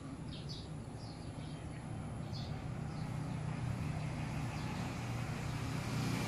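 A low, steady rumble that grows gradually louder, with a few short, high bird chirps in the first half.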